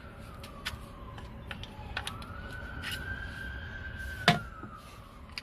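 An emergency siren wails in the background, its pitch slowly rising and falling, under scattered clicks and taps from hand work, with one sharp click about four seconds in.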